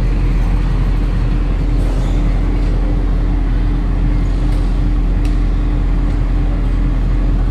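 An engine or machine running steadily: a constant low drone with an even hum.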